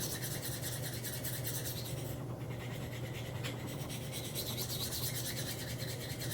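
Knife blade's steel edge stroked by hand across a Spyderco ultra fine ceramic sharpening stone: a steady scraping rasp of repeated sharpening strokes, with a brief break about two seconds in. A steady low hum lies under it.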